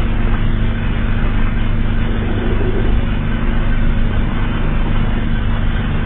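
Loud, steady low drone from a mock emergency-alert soundtrack: several held low tones under a rough hiss, with no pauses and no change in pitch.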